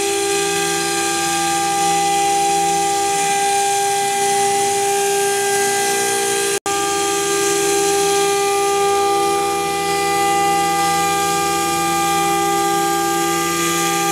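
Spindle of a 777russia pro-series CNC router milling a clear acrylic sheet: a steady high whine with a hiss over it. It breaks off for an instant about halfway through.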